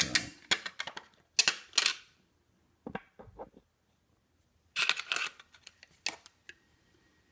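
Clicks and light metallic scrapes of a Seagate Momentus laptop hard drive's metal casing and top cover being handled and pulled off the base. They come in two clusters, one at the start and one about five seconds in, with a quiet gap between.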